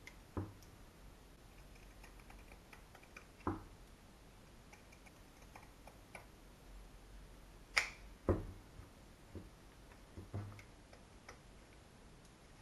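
Pinking shears cutting through sewn layers of fabric: a scattered series of soft snips and blade clicks, the sharpest about eight seconds in.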